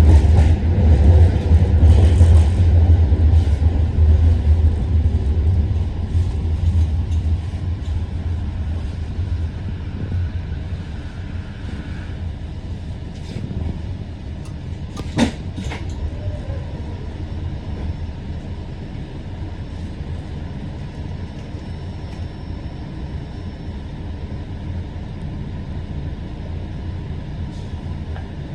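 Low rumble of a passing vehicle that fades away over the first ten seconds or so, leaving steady background noise. A single sharp click comes about halfway through.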